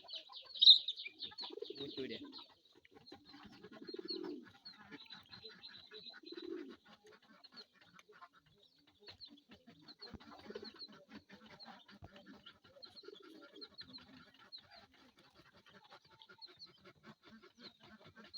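Hill chickens calling: a few short, soft low clucks spread through, over a near-continuous patter of short high-pitched chirps, one of them loud about a second in.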